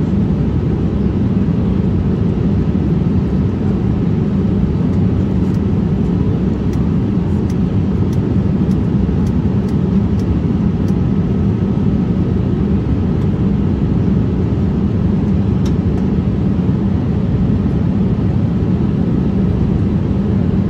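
Cabin noise of a Boeing 787-8 Dreamliner on approach, heard at a window seat over the wing: a steady low rush of airflow and engine noise, with a faint steady high whine on top.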